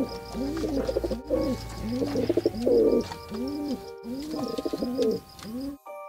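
Pigeon cooing over and over, a run of low coos that each rise and fall in pitch. The cooing cuts off suddenly just before the end.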